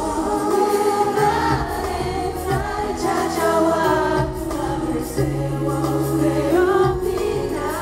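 Male K-pop group singing a slow ballad live over instrumental accompaniment.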